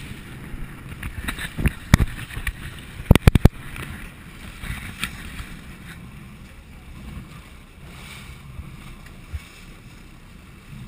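Fishing boat under way at sea: a steady low rumble and rush of water against the hull, with wind on the microphone. A couple of single sharp knocks come early, and a quick run of four louder sharp knocks comes about three seconds in.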